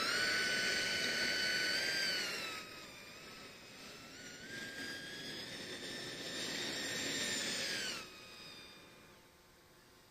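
Mir-25 Boxfat RC jet's 145 mm electric ducted fan whining high in flight. The whine drops in pitch and level about two and a half seconds in, climbs again, then falls away late on.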